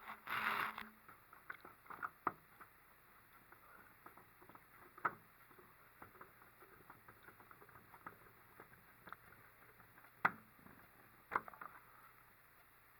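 Scattered light clicks and taps of a screwdriver and small screws being worked into a 3D printer kit's frame part, with a short rustle of handling near the start. The sharpest clicks come about 5, 10 and 11 seconds in.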